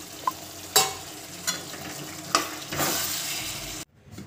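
Chicken and potato curry sizzling in a steel pan while a metal ladle stirs it, clinking sharply against the pan several times. The sound cuts off suddenly near the end.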